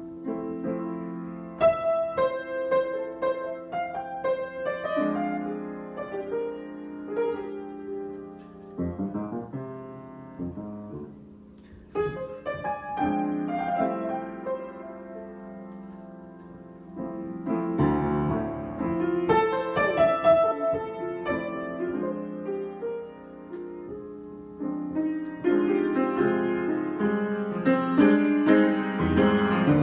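Solo piano improvising: chords held under melodic notes, in phrases that swell and fall back, quieter for a few seconds in the middle before building again.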